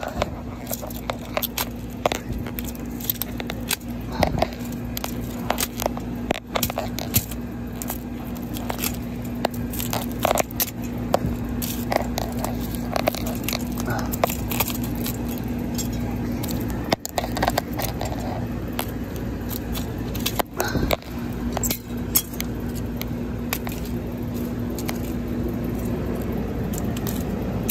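A spiral metal stake striking and scraping the shattered plastic and glass pieces of a Samsung SGH-A837 flip phone on concrete: irregular sharp clicks, cracks and crunching. A steady low hum runs underneath.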